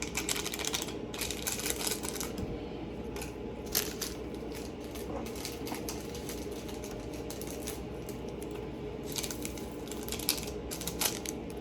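Scattered light clicks, taps and rustles from handling food packets and utensils while making a bowl of noodles, in short clusters near the start, around a third of the way in and near the end, over a steady low hum.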